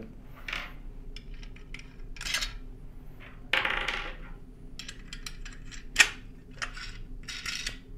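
Metal clinks, rattles and scrapes of a mounting bracket's bolts and hardware being handled and fitted together by hand, with one sharp click about six seconds in.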